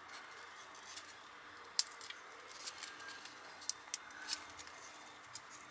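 Faint, sharp clicks and crackles, about six spread unevenly, as dry dead leaves are picked and snapped off potted succulents by hand; the loudest is a little under two seconds in.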